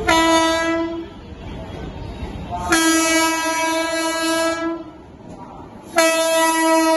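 Electric locomotive of the Ahmedabad–Mumbai Tejas Express sounding its air horn in three single-pitched blasts as it approaches the platform: a one-second blast, a longer two-second blast, then a third starting near the end. The low rumble of the oncoming train runs between the blasts.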